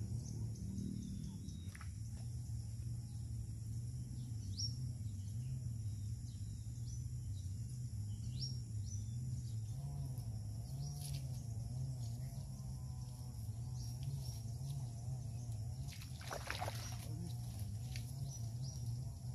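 Riverside outdoor ambience: a steady low hum, a steady high insect buzz and scattered short bird chirps. About three-quarters of the way in comes a brief rustling splash as a hooked Mozambique tilapia (mujair) is pulled out of the water.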